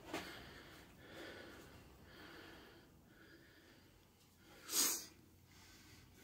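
Faint breathing of a man recovering after a heavy deadlift set, with a short, sharp breath heard more loudly about five seconds in.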